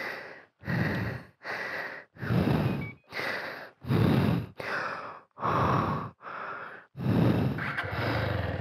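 A man panting heavily from exhaustion, about ten deep breaths in and out, each roughly 0.8 s long, with the last breath near the end drawn out longer.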